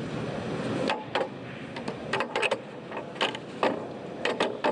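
Pool balls clicking against each other: about nine sharp, irregular clicks, each with a short ring, over a steady hall hiss.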